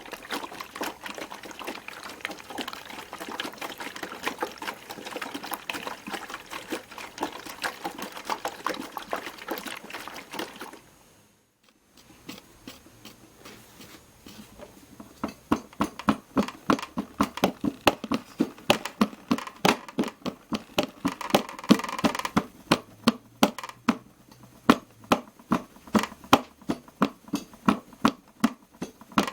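Piko WS5522 washing machine at the end of its final rinse: water swishing and draining through the machine with many small knocks. It falls quiet for a moment about eleven seconds in. Then the drum starts turning for the final spin, with a rhythmic knocking of about two beats a second that grows louder.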